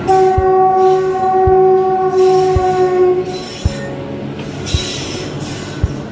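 A passing express train's locomotive horn sounds one long steady blast of about three seconds. Under it and after it, the train runs through with a rumble and a regular thud about once a second from the wheels.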